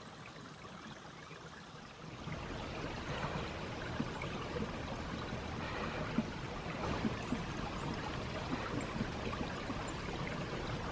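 Water of a frozen creek and waterfall running and trickling steadily. It gets louder about two seconds in.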